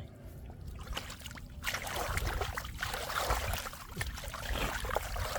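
Shallow floodwater splashing and sloshing, becoming louder and busier about two seconds in.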